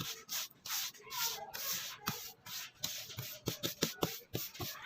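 Hand sanding or scrubbing strokes rubbed back and forth at about two to three strokes a second. Several sharp clicks join in during the second half.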